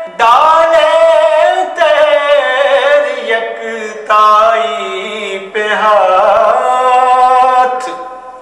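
A man singing an Urdu devotional song in long, drawn-out phrases, with held notes that bend and waver; the last phrase fades away near the end.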